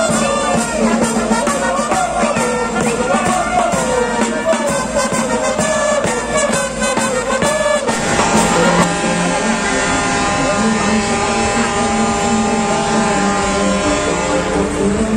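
Street marching band playing brass and drums with a steady beat. About eight seconds in, the sound changes abruptly to steadier music with long held notes.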